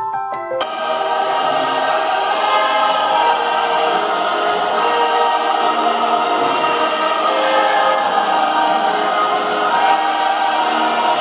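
A few quick bell-like struck notes, then a choir singing music from about half a second in.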